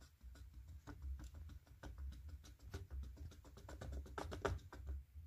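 A wooden craft stick stirring melted soap base in a paper cup: quick, faint clicks and scrapes of the stick against the cup, loudest about four seconds in.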